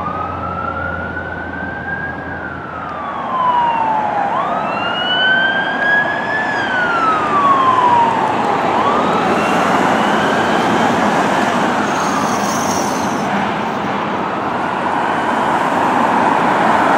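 Fire engine siren wailing: three rise-and-fall sweeps about four and a half seconds apart, the last fainter, giving way to the steady noise of the passing fire truck.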